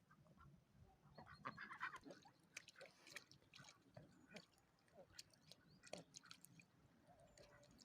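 Faint scattered clicks and a few short soft calls from poultry, ducks and chickens, over near silence.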